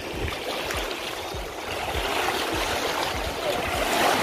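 Waves washing ashore on the wide Kama river, a steady hiss that swells toward the end, with wind buffeting the microphone in low, irregular thumps.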